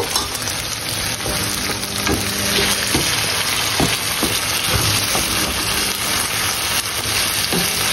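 Minced-meat filling sizzling steadily in a frying pan, with sauce just added to it.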